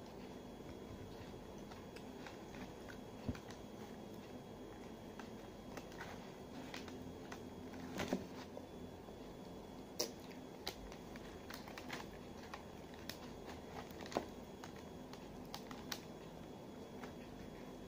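Quiet eating sounds: chewing and mouth noises, with scattered sharp clicks of a plastic spoon in a small plastic cup, over a faint steady hum.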